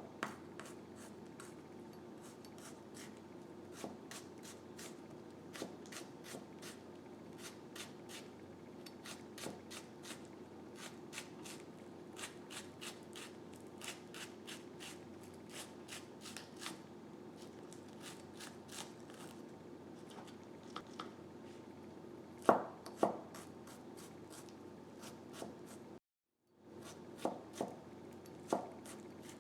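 Knife chopping on a cutting board in a quick, even rhythm of several strokes a second, with a few heavier knocks near the end, over a faint steady low hum.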